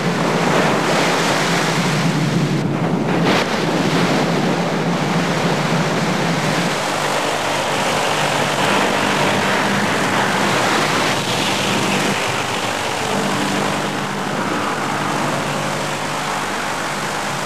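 Storm at sea: a loud, steady rush of wind and breaking waves with heavy spray. From about seven seconds in, a low steady hum runs underneath.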